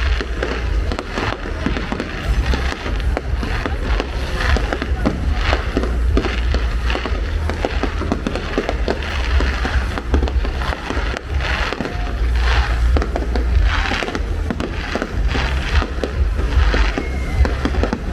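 Fireworks display going off: a dense, irregular run of shell bursts and crackling over a continuous low rumble.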